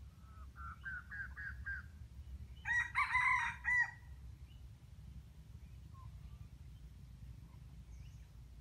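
Red junglefowl rooster crowing once, a short crow about three seconds in, preceded by a quick run of six short clucking notes that rise slightly in pitch.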